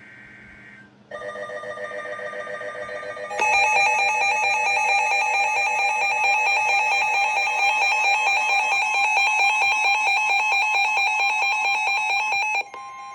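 Emergency Alert System broadcast tones ahead of a flash flood warning. A brief high data burst comes first, then a quieter pulsing tone for about two seconds, then the loud, harsh two-tone attention signal for about nine seconds, which cuts off abruptly near the end.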